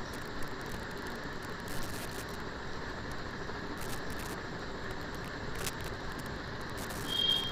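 Marinated liver pieces sizzling steadily in hot oil in a nonstick wok, with a few light clicks of a spatula against the pan. A brief high-pitched tone sounds near the end.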